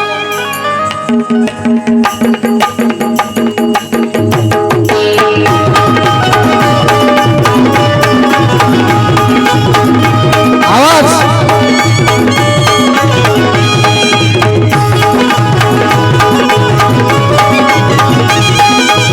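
Instrumental music of a Marathi Bhimgeet with a drum beat under a melody. The low beat fills out and gets heavier about four seconds in, and a short wavering glide sounds near the middle.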